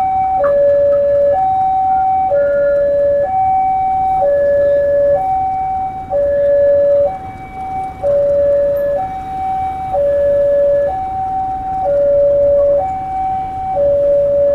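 Railway level-crossing warning alarm sounding a steady two-tone high-low pattern, each note held about a second, with no change in pitch.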